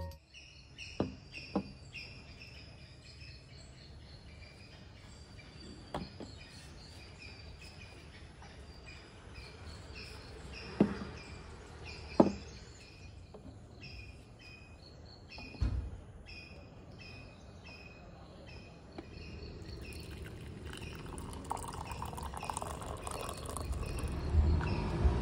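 Small birds chirping over and over in the background, with a few sharp knocks of stoneware mugs being set down on a tabletop, the loudest about halfway through. A rushing noise swells in the last few seconds.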